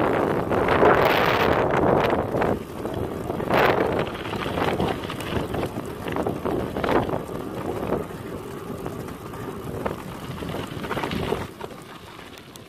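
Wind buffeting the microphone in gusts as a bicycle rolls along a gravel road, easing off toward the end.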